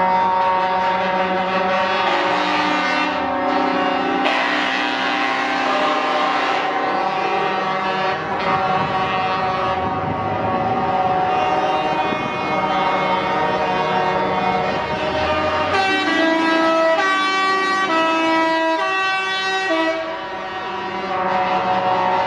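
Truck air horns sounding together, several held notes at different pitches overlapping and changing every few seconds. Past the middle, the horns step quickly through a run of notes.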